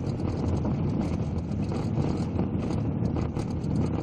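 Cabin road noise of a 2009 Suzuki Vitara driving at speed on a rough gravel road: a steady low rumble of tyres and engine with a constant scatter of small ticks and rattles.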